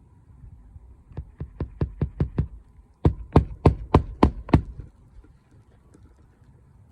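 Hammer driving roofing nails into a new asphalt shingle: a run of about seven quick strikes, then a second, louder run of about seven, each at roughly four to five blows a second.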